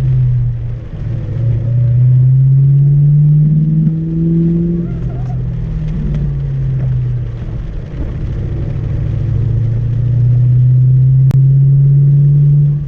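2004 Ford Mustang GT's V8 engine heard from inside the car, revving up under acceleration: the engine note climbs, drops back around a gear change, then climbs again. A single sharp click near the end.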